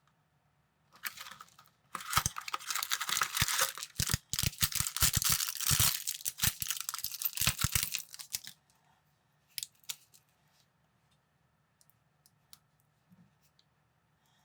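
Thin plastic bag being torn open and crinkled: a dense crackling rustle with sharp clicks, starting about a second in and stopping near the ninth second. A few scattered light clicks follow, like small plastic bricks being handled.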